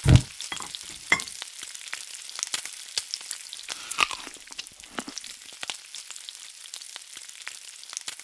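A thump, then fat sizzling and crackling in a frying pan with scattered sharp pops, slowly fading out near the end.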